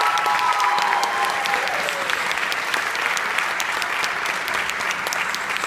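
Audience applauding steadily, dense clapping, with a drawn-out whoop that falls away about two seconds in.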